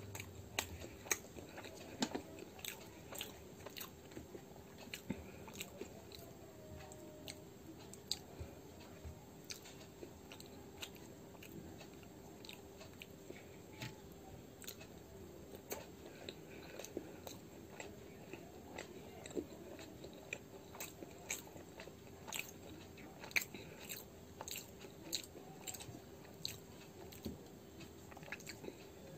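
Close-up eating sounds of a person chewing and biting gobhi paratha (stuffed flatbread) with curd: many short, irregular mouth clicks and smacks, over a steady faint hum.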